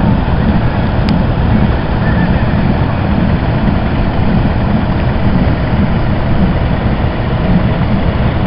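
Vintage threshing machine running steadily under power, a continuous low mechanical drone.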